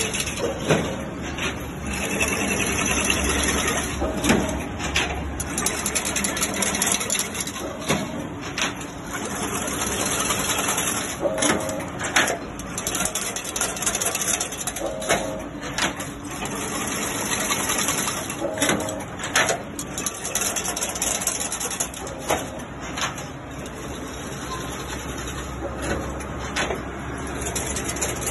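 Automatic chain link fence weaving machine running: a steady mechanical whir with a high hiss over it. About every three and a half seconds comes a repeating cycle of two sharp clacks and a short tone, each cycle weaving more of the mesh.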